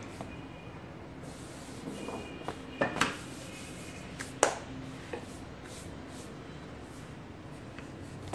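Hands pressing and handling a slab of fondant on a stone countertop, with several short sharp knocks between about two and a half and five seconds in, the loudest near the middle, as the wooden rolling pin and hands meet the counter.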